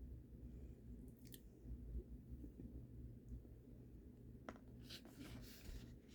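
Faint chewing of soft cake, with a few small mouth clicks.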